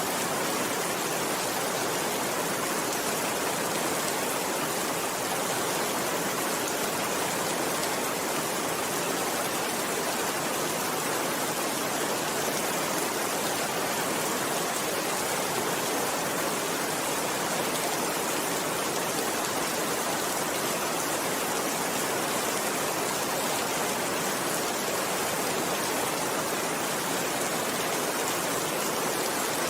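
Steady rain falling, a dense even hiss with no thunder claps.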